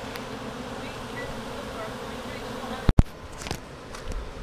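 A swarm of honeybees buzzing around a hive box, a dense steady hum. About three seconds in a sharp click breaks it, and the buzzing goes on more faintly with a couple of soft bumps.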